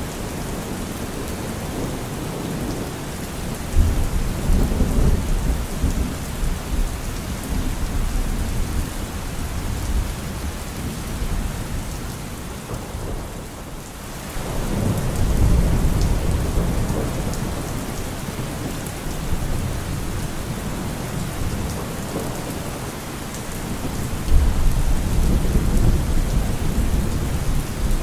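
Steady rain with thunder rumbling low three times: a few seconds in, around the middle, and again near the end.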